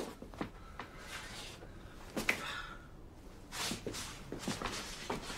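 A quiet room with a few soft footsteps and brief rustles of movement.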